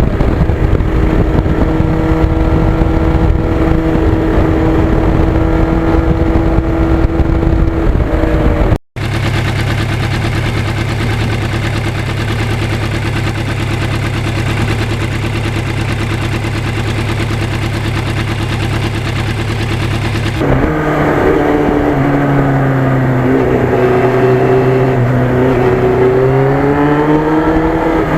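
Yamaha FZR1000 inline-four motorcycle engine running under way, loud and continuous. The engine note holds steady, switches abruptly to a steady lower note about nine seconds in, then from about twenty seconds in rises and falls with the revs.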